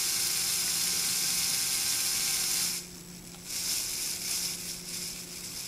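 Small Lego WeDo electric motor whirring as it spins a Lego disc fan, a steady whine with hiss. The whir drops off sharply for about half a second near the middle, then picks up again, a little quieter and less steady.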